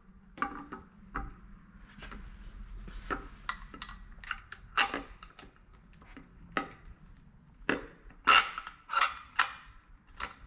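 Irregular metal clinks and knocks as an AC compressor and its bolts are handled and fitted by hand onto a mounting bracket on an engine. The loudest knocks come about eight to nine seconds in.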